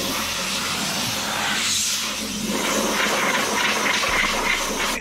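Compressed-air blow gun blowing scuffing dust off a freshly scuffed alloy wheel before painting. It makes a steady, loud hiss that cuts off suddenly at the end.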